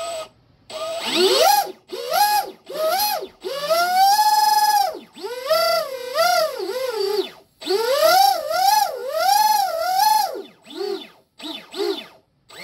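Rocket 2948 3450 kV brushless RC boat motor spooled up on the bench for the first time with its freshly greased flex drive cable in: a whine that rises and falls with a series of throttle blips, held steady for about a second about four seconds in, with a few short blips near the end.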